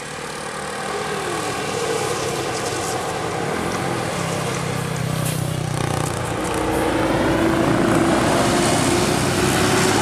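Large tour bus's engine running as the bus rounds a bend and passes close by, growing louder over the first couple of seconds and peaking near the end, with road noise.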